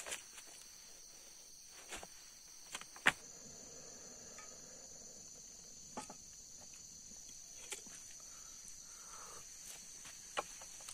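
Steady high-pitched drone of forest insects, with scattered sharp clicks and knocks, the loudest about three seconds in.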